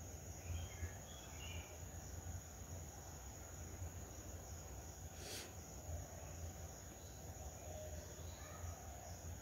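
Faint knife cutting peeled elephant foot yam (suran) into chunks over a china plate, with one light click about five seconds in, over a steady low hum.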